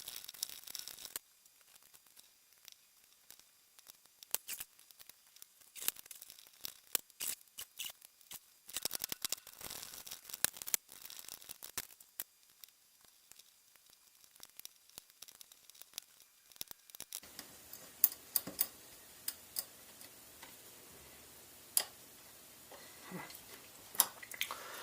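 Small metallic clicks and scrapes of a lock pick and tension wrench working the pins inside a cheap padlock, coming in irregular clusters of quick ticks with pauses between.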